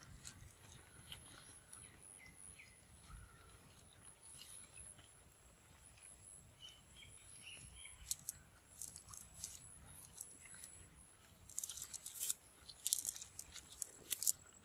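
Quiet rustling and crackling of a nylon cast net being lifted, gathered and spread out on grass, with sharper crackly bursts of handling in the last few seconds.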